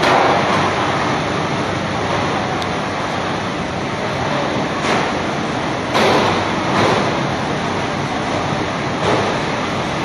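Tunnel crate washing machine running, its water sprays making a steady rushing noise, with several brief louder surges.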